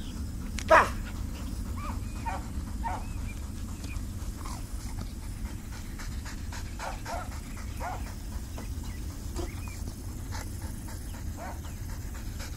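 A retriever whining over and over in short, squeaky whimpers. There is one louder, sharp sound about a second in, and a steady low wind rumble on the microphone underneath.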